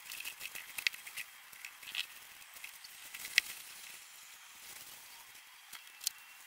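Faint rustling and scraping of potting soil and a plastic soil bag handled while filling a large planter, with a few sharp clicks, the loudest about halfway through.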